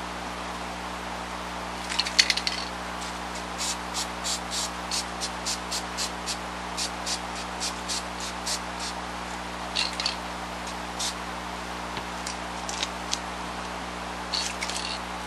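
Aerosol can of spray adhesive being picked up and shaken, its mixing ball rattling in a regular series of sharp clicks, about three a second, for some five seconds, with a few scattered clicks of handling before and after.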